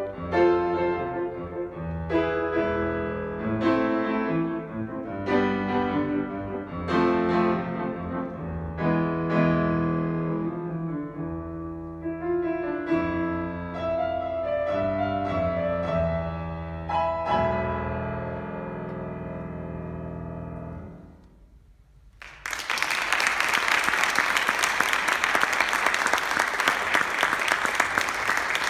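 Grand piano playing chords that ring out, the piece ending on a final chord that dies away about 21 seconds in. After a brief silence the audience breaks into applause and keeps clapping.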